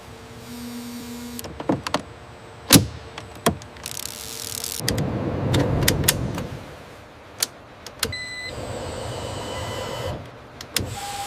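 Assembly-line machinery: sharp mechanical clicks and short whirs of a small electric motor. There is a longer stretch of rushing noise about five seconds in and a short electronic beep about eight seconds in.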